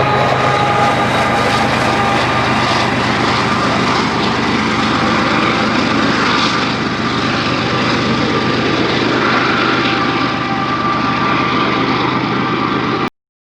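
Freight train rolling past: a steady, loud rumble of wheels and cars with faint thin squealing tones from the wheels. It cuts off abruptly near the end.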